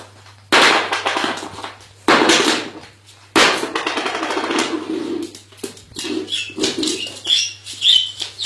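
A bird flapping its wings in three loud bursts about a second and a half apart, then a run of short high chirps.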